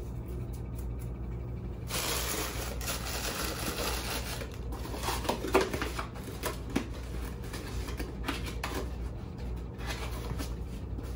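Rustling, crinkling and light tapping of a cardboard box of soil amendment being handled and folded shut, starting about two seconds in, over a steady low hum.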